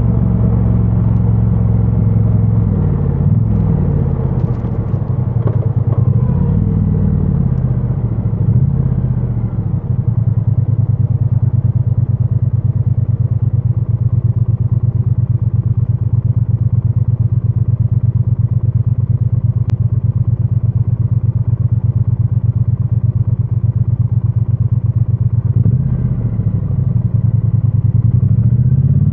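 2022 Triumph Bonneville T100's 900 cc parallel-twin engine through its stock exhaust, heard from a microphone inside the rider's backpack. The engine note rises and falls several times in city traffic, then holds one steady note for about fifteen seconds before climbing again near the end.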